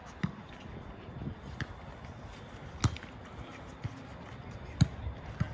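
A volleyball being struck by hands during a rally: several sharp slaps roughly a second apart, the loudest near the middle and near the end, over faint open-air background noise.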